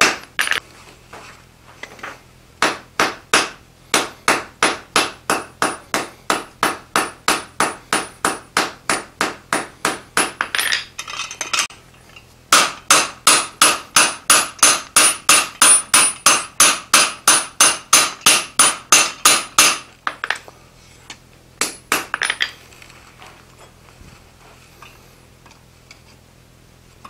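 Hand hammer striking the top die of a Smithing Magician guillotine tool on an anvil, forging a taper on a hot steel bar held between tenoning dies. Two long runs of steady blows, about three a second, with a short pause between them. A few last blows come a little after the second run, and then the hammering stops.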